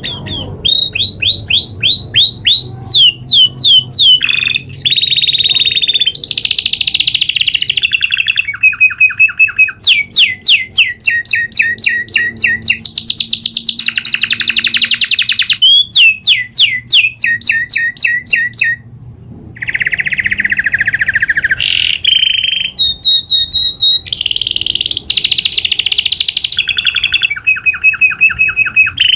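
Domestic canary singing a long rolling song: fast trills of rapidly repeated notes that switch to a new pattern every second or two, with one brief break about two-thirds of the way through.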